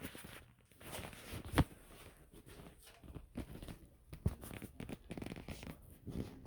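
Scattered faint rustling with small, sharp knocks at irregular intervals. The sharpest knock comes about a second and a half in, and another just after four seconds.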